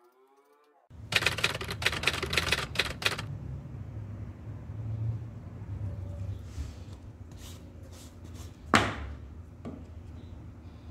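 Tapered hand reamer being worked in a drilled hole in wood to make a conical hole for a tapered pin: a quick run of clicking for about two seconds, then softer scraping. One sharp knock about nine seconds in.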